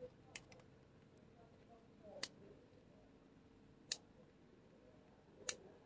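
Four sharp little clicks about a second and a half apart, from handling the portable speaker and its microSD card slot, over a faint steady hum.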